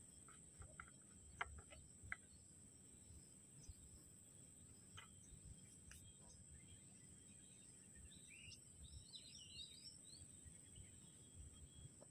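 Quiet outdoor ambience: a steady high insect drone, with a bird's quick chirps about nine seconds in. A few sharp clicks about one and two seconds in from hands handling the plastic fuel bottles and the brushcutter's tank.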